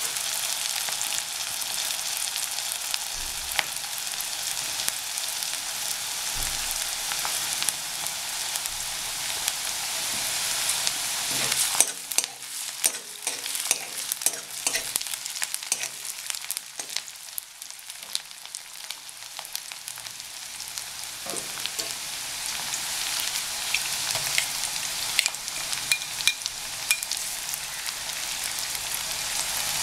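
Food frying in hot oil in an aluminium kadai: a steady sizzle. About twelve seconds in the sizzle drops and a steel spoon scrapes and clinks against the pan as the food is stirred, and the sizzle builds again in the last third.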